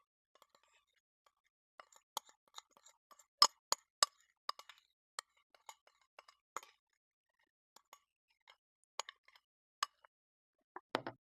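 A kitchen utensil clinking and tapping against a bowl as a marinade is poured and scraped from one bowl into another: scattered sharp clinks at an irregular pace, loudest and most frequent in the first half.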